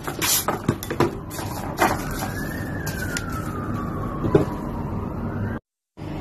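Plastic cling film crackling and being torn off as a bowl is wrapped, with sharp clicks. Then a siren wails faintly behind it, its pitch slowly rising and falling. The sound cuts out briefly near the end.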